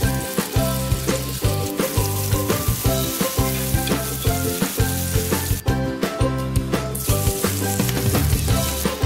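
Hot oil sizzling in a nonstick frying pan as cubes of firm tofu fry, then as raw prawns are stir-fried. The sizzle drops out for about a second a little past halfway. Background music with a steady beat plays under it.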